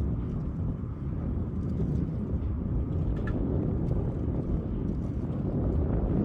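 Storm wind buffeting the microphone: a steady, uneven low rumble, with a brief high squeak a little past halfway.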